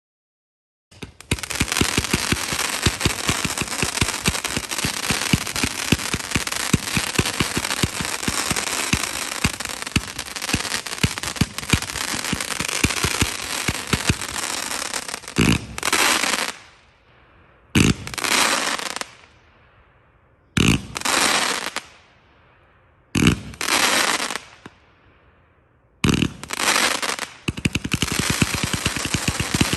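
A 156-shot zipper firework cake firing a rapid, nearly continuous string of shots, starting about a second in. Just past halfway the string breaks into five short volleys with the sound fading away between them, and dense rapid firing resumes near the end.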